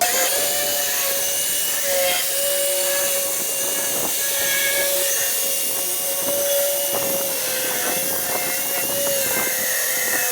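Handheld circular saw switched on and cutting through a board: a steady, high motor whine that comes in sharply and wavers only slightly under load.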